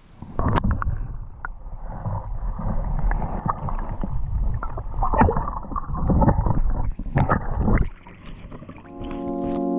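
Water sloshing and splashing close to the microphone, with scattered knocks, stopping about eight seconds in; background music with sustained piano-like notes begins near the end.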